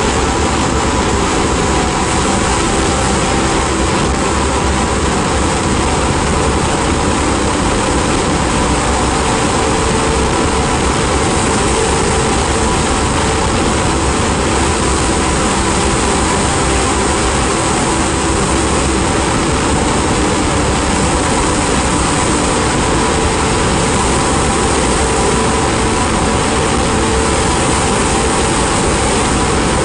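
Ambient noise-drone music: a dense, steady wash of hiss and rumble with a few faint held tones underneath, unchanging throughout.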